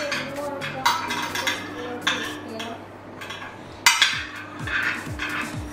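Metal spoon knocking and scraping against a glass baking dish while blackberries are stirred and pressed in it. There are a few sharp clinks, the loudest about four seconds in.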